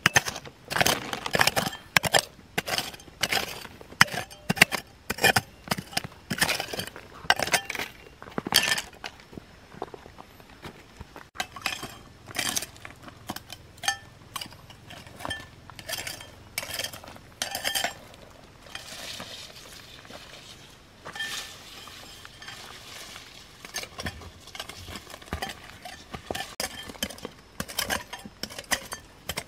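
Irregular sharp clinks and knocks of hard objects striking one another, some leaving a short ringing tone. The clinks come thick and fast at first, give way to a stretch of softer scraping with only scattered knocks past the middle, then pick up again near the end.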